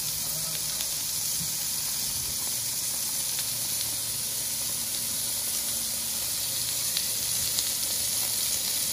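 Lamb cutlets sizzling on the hot grill of a gas barbecue: a steady hiss of fat and juices cooking, with a few faint crackles and pops.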